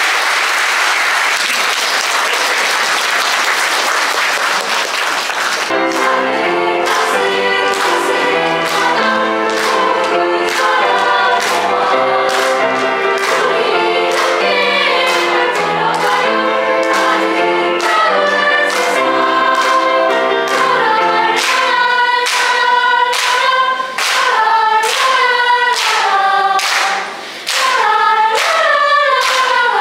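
Audience applause for about six seconds, then a children's choir starts singing a lively song over backing music, with hand claps keeping a steady beat.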